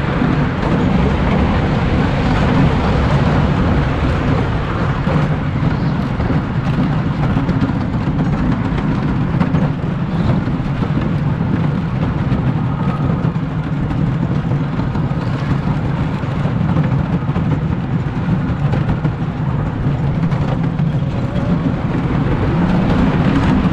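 Wooden roller coaster train running along its track, heard from the front seat on board: a steady, loud rumble of the wheels on the rails.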